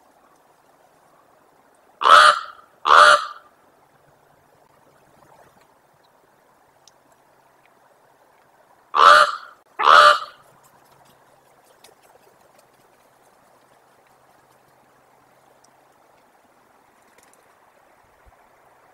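Common raven calling: two pairs of loud croaking calls, one pair about two seconds in and another about nine seconds in, each call about half a second long and the two calls of a pair about a second apart.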